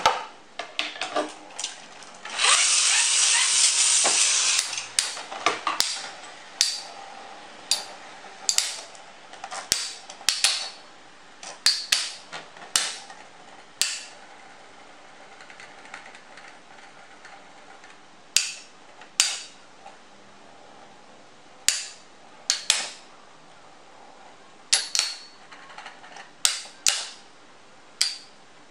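Two metal battle tops spinning in a plastic stadium: a loud rasping rush for about two seconds as the second top is launched in, then sharp metallic clacks as the tops collide, irregularly about once a second, with a lull in the middle before the hits resume.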